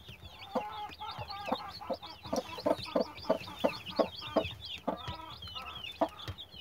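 Mother hen clucking in a quick run of short low clucks, about three a second, as she pecks at feed: the food call a hen uses to teach her chicks to eat. Newly hatched chicks peep high and fast throughout.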